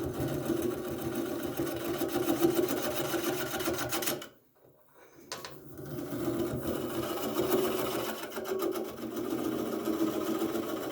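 Wood lathe running at a very slow speed while a gouge cuts into the spinning wooden bowl blank, giving a steady hum with a rhythmic scraping chatter. The sound drops out for about a second around four seconds in, then resumes.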